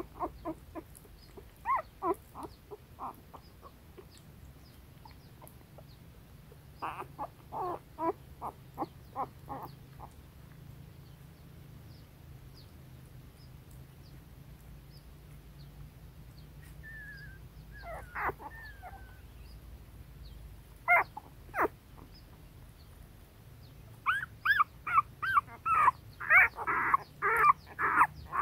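A litter of young puppies whimpering and squeaking in their den: short high calls in small runs, a quiet stretch in the middle, then a busier, louder run of calls near the end.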